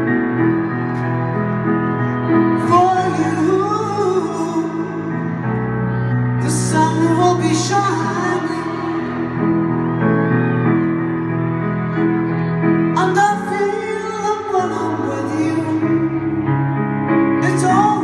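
Female voice singing a slow, tender ballad to solo grand piano, the piano holding sustained chords between sung phrases, heard live from the arena seats.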